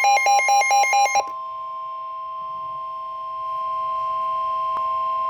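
Electronic alert tones of a weather radio: a rapid alternating two-pitch beeping cuts off about a second in, and a steady single-pitch warning alarm tone (the NOAA Weather Radio 1050 Hz tone) takes over, with a fainter lower tone beneath it, getting a little louder past the halfway point.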